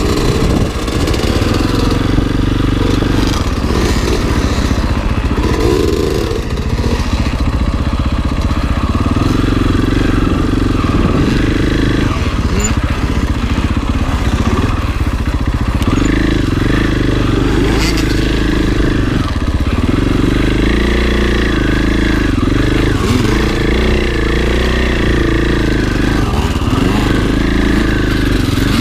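Husqvarna FE 501 enduro dirt bike's single-cylinder four-stroke engine being ridden, its pitch rising and falling continuously with the throttle.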